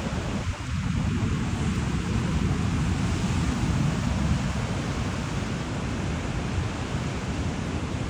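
Ocean surf washing onto the beach in a steady roar of hiss, with wind buffeting the microphone in a low rumble. It swells a little louder about a second in and eases after about four seconds.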